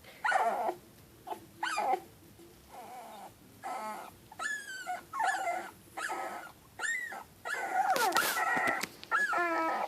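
Newborn boxer puppies whimpering and squealing in a string of short, high cries, sparse at first and then coming thick and overlapping from about four seconds in: the litter fussing.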